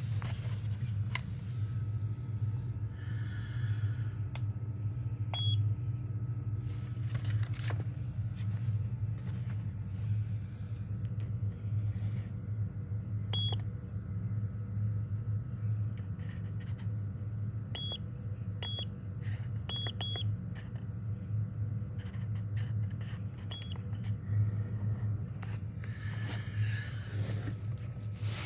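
A steady low hum with short, high electronic beeps now and then: one about five seconds in, one near the middle, and a cluster of single and paired beeps around twenty seconds in.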